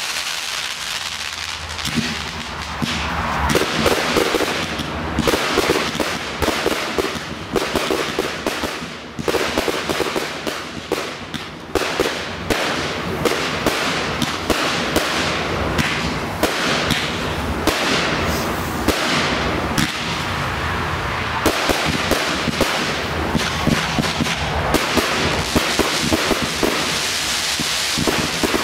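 Fireworks display: a dense, continuous barrage of bangs and crackling bursts, many sharp reports a second.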